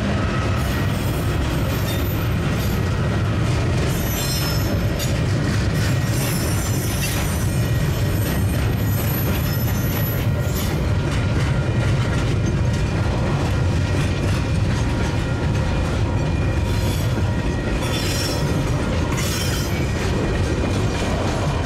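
Freight train wagons rolling past at steady speed: a continuous low rumble of wheels on rail, with bursts of high-pitched wheel squeal several times along the train.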